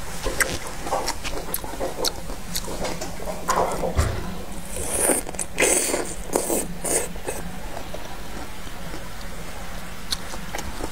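Crisp bites and chewing of fresh star fruit (carambola): a run of short crunchy snaps, thickest about four to seven seconds in.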